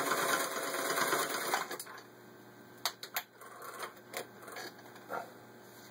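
Singer 401A sewing machine running as it stitches through six layers of denim, stopping about two seconds in; a few sharp clicks follow.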